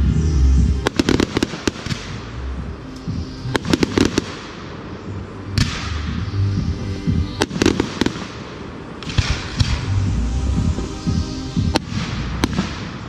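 Fireworks display: aerial shells going off in sharp bangs, some in quick clusters, with hissing and crackling between bursts and music playing underneath.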